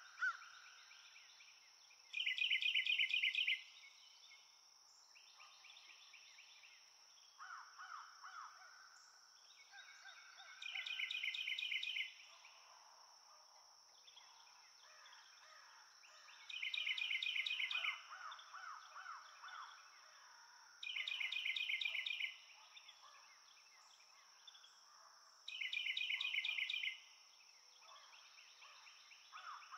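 Wild birds calling: a loud, rapid chattering call about a second and a half long comes five times, every four to five seconds, with quieter trills between, over a steady high-pitched whine.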